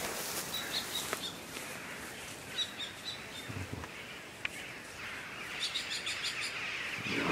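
Small birds chirping outdoors, several clusters of short high chirps, over a steady hiss that grows louder about five seconds in.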